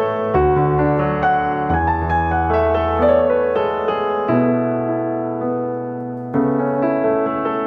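Gentle piano music: sustained chords with a melody on top, the harmony changing every couple of seconds.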